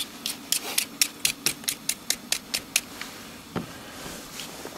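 Vegetable peeler scraping the skin off a raw potato in quick strokes, about five a second, stopping a little past halfway with only a stroke or two after.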